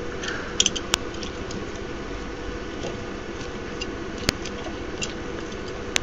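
A few light clicks and taps as jumper wires are moved on a breadboard, over a steady low hum.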